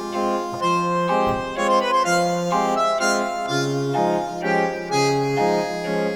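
Background music: an instrumental tune with held, reedy chord-like notes that change about every half second.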